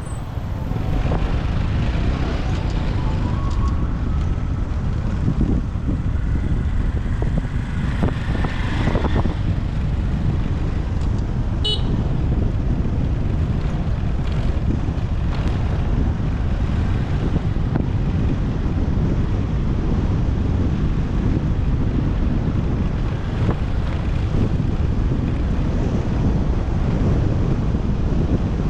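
Motorbike ride through city traffic: a steady low rush of wind on the microphone over engine and traffic noise, with horns tooting and a short high beep about twelve seconds in.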